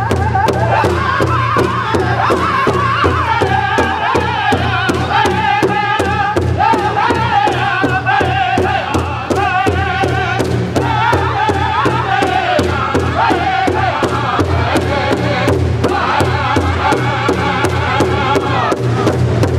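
Powwow drum group singing in unison in high, wavering voices over a large shared bass drum struck together in a steady beat, performing a champion song. Women's voices join in from behind the drum.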